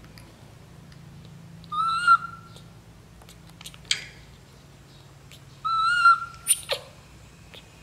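Baby macaque giving two short whistle-like coo calls, each about half a second long and a few seconds apart. Sharp clicks fall between and after them, one just after the second call sliding quickly down in pitch.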